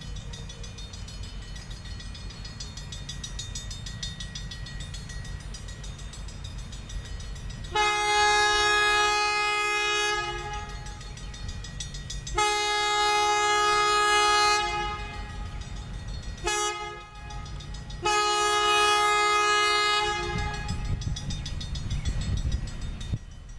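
A train's air horn sounds the grade-crossing signal as a chord of several notes: two long blasts, a short one, then a final long blast. Under it runs the low rumble of the slow-moving diesel train, which swells near the end as it comes closer.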